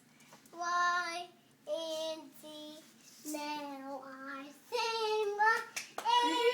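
A short sung tune in a child-like voice, a string of held notes one after another, with a sharp click near the end.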